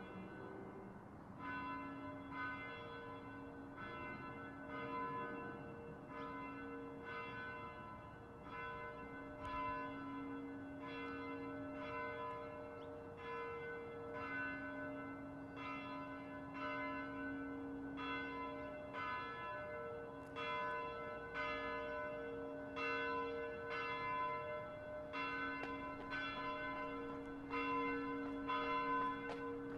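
A church bell tolling steadily, struck about three times every two seconds, its tone ringing on between strikes.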